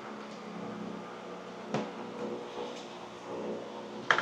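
A few light clicks and knocks from a foam-and-plastic model plane being handled and its wing set onto the fuselage, with a double click near the end, over a steady low hum.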